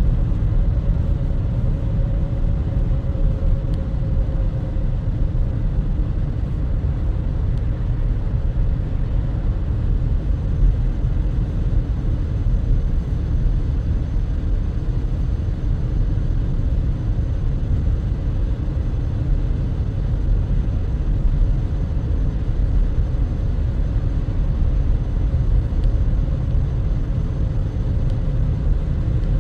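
Steady low rumble of a car driving at road speed, heard from inside the cabin: engine and tyre noise with a faint steady hum.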